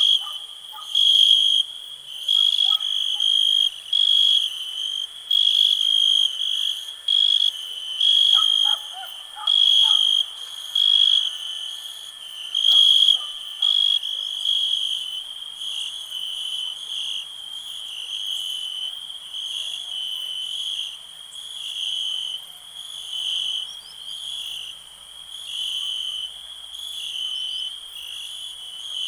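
Crickets chirping, a high, shrill trill pulsing in regular groups about once a second, then settling into a steadier, softer trill about halfway through. A few faint, lower short calls sound briefly in the middle.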